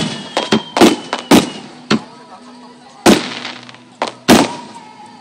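Aerial firework shells bursting in sharp bangs, each trailing off with a short rumbling echo: a quick run of about seven bangs in the first two seconds, then two more about a second apart.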